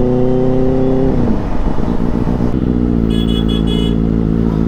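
Motorcycle engine heard from the rider's seat, running steadily, then dropping in pitch about a second in as the bike slows and settling into a lower, even running. A few short high beeps sound partway through.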